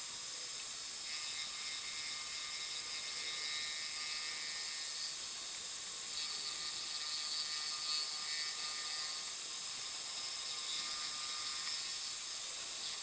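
Harbor Freight mini-mill spindle running as a small cutter mills the square drive hole in a brass gear blank: a steady, high-pitched machining sound with no change in pace.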